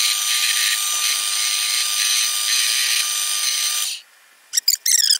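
Drill press spinning a Scotch-Brite abrasive wheel with a wrought iron bracelet pressed against it for buffing: a steady whirring hiss over a steady motor tone, which cuts off abruptly about four seconds in. A few short, high-pitched squeaks follow near the end.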